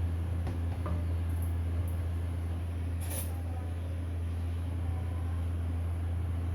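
Steady low mechanical hum, with a few light clinks scattered through it, the clearest about three seconds in.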